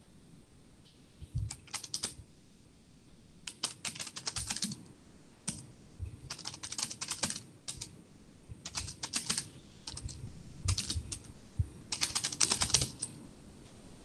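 Typing on a computer keyboard: rapid keystrokes in about seven short bursts with pauses between them, the last burst near the end the loudest.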